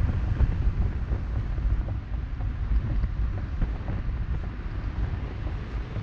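Wind buffeting the microphone of a camera on a moving car, an uneven low rumble, with road noise underneath.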